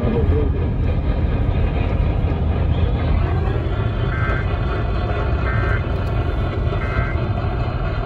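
Three short buzzy bursts of Emergency Alert System end-of-message data tones, about a second and a half apart, coming over AM radio through the car's speakers. A steady low rumble and hiss runs underneath.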